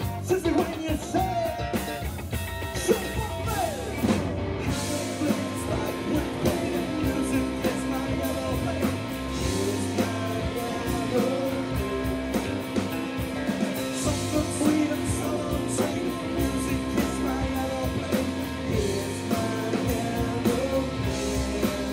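Live rock band playing electric guitar, bass guitar and drum kit, with a steady beat and sliding guitar or vocal notes in the first few seconds.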